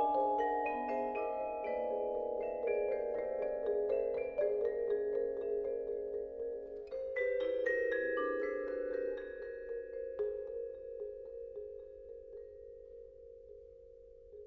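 Marimba and vibraphone playing sparse, quiet chamber music: scattered mallet strokes over long-ringing vibraphone chords, a fresh flurry of notes about seven seconds in, then a held chord slowly dying away.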